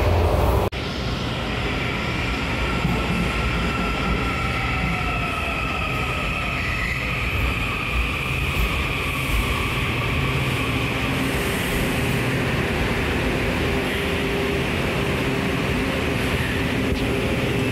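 Washington Metro subway train running, with a steady rumble and hiss and faint high-pitched tones over it. A louder burst of train noise cuts off abruptly less than a second in.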